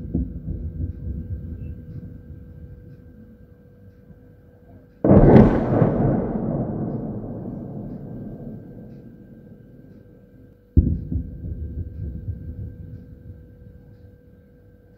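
Artillery salvo firing in the distance: a boom right at the start, a louder, sharper boom about five seconds in that rumbles away over several seconds, and a duller, deeper boom near eleven seconds that also rumbles off slowly.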